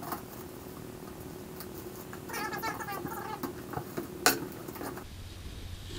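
Cardboard shipping box being opened: packing tape pulled off the flaps with a squealing tear for about a second, followed by a single sharp click, amid small rustles and taps of cardboard.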